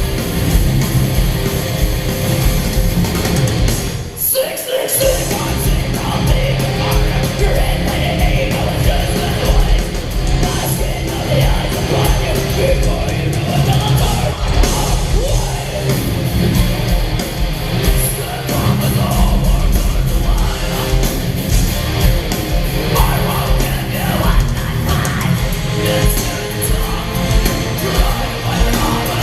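Live heavy metal band playing loudly: distorted guitars, drums and harsh yelled vocals, with a brief break in the music about four seconds in.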